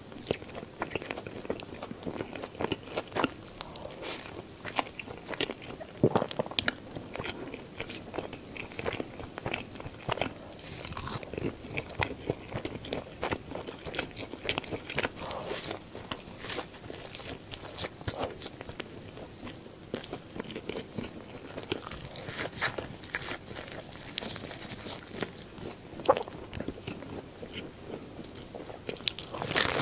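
Close-miked eating of McDonald's burgers and Chicken McNuggets: a steady run of crunchy bites and wet chewing. Louder crisp snaps come about six seconds in, near twenty-six seconds and near the end.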